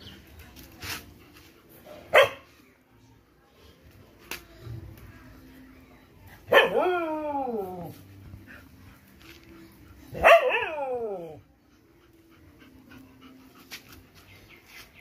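A black German shepherd gives a short bark about two seconds in, then two long whining howls, each falling in pitch, while being rubbed dry with a towel.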